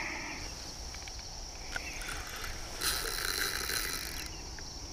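Steady high-pitched drone of insects, with a stretch of hiss lasting about a second and a half, starting about three seconds in.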